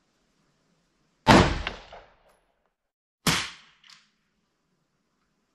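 Two single shots from an Oberland Arms OA-15 AR-15-pattern rifle in 5.56 mm/.223, about two seconds apart, each sharp crack dying away in a short echo.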